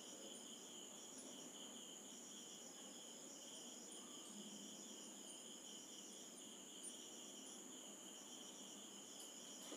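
Near silence, with a faint, steady high-pitched trill in the background.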